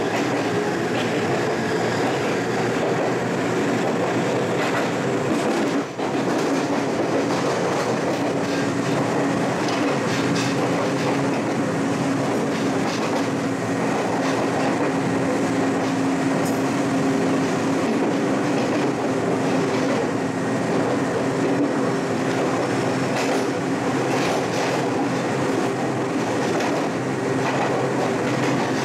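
Electric commuter train on the Ryutetsu Nagareyama Line, running steadily and heard from the front of the train: continuous wheel-and-rail running noise with a steady hum and light clicks over rail joints.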